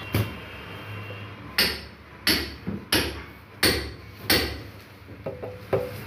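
A run of sharp, hard knocks: about seven in all, mostly evenly spaced about two-thirds of a second apart, with a weaker, irregular patter near the end.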